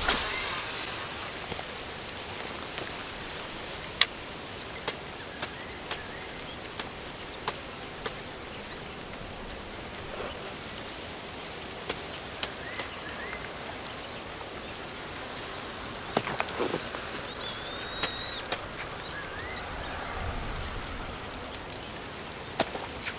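Outdoor ambience: a steady hiss broken by scattered sharp clicks, with a few short bird chirps that are clearest about three-quarters of the way through.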